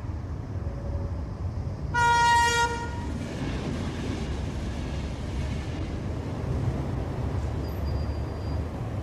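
Low steady rumble of a passing electric commuter train, with one short horn toot about two seconds in.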